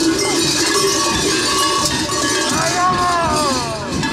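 Dense, continuous clanging of many large cowbells worn by traditional Sardinian carnival masks. About two and a half seconds in, a man's voice calls out in a long falling cry over the bells.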